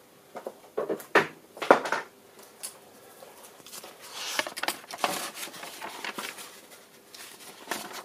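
Handling noise from a micrometer being set on three-wire thread-measuring wires over a threaded steel part, with the lathe stopped: a few sharp clicks and knocks in the first two seconds, then rustling and light tapping.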